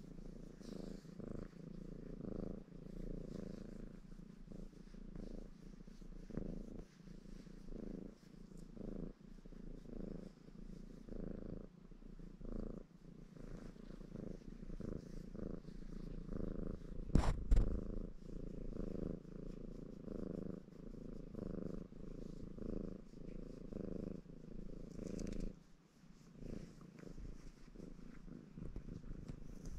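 Ginger Maine Coon cat purring steadily and close up, the purr pulsing in an even rhythm with its breaths. A single sharp knock stands out about halfway through.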